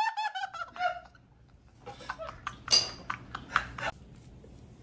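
A person's high laugh trailing off in the first second, then a few light clicks and clinks of utensils and dishes, one sharper than the rest near the middle.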